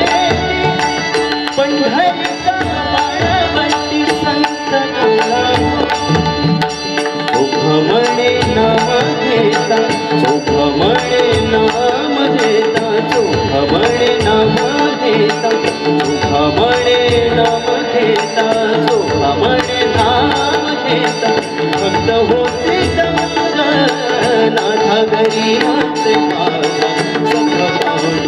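A male singer singing a melodious song live into a microphone, with harmonium accompaniment and steady hand-drum percussion keeping a rhythm throughout.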